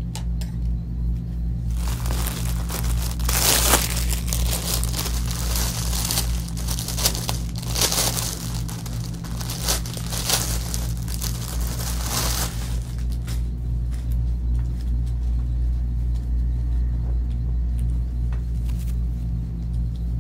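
Clear plastic garment wrapping crinkling and rustling for about ten seconds, starting a couple of seconds in, as a dress is pulled out of its bag, over a steady low drone.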